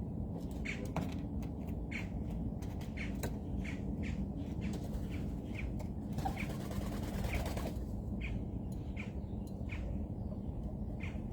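Birds at a feeder giving short, repeated chirps about every half second, with a flutter of wings for a second or two about six seconds in, over a steady low background rumble.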